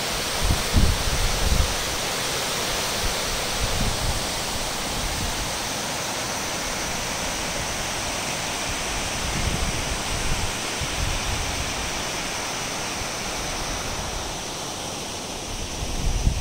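Water pouring over a dam's overflow spillway: a steady rushing that eases a little near the end. Gusts of wind buffet the microphone now and then.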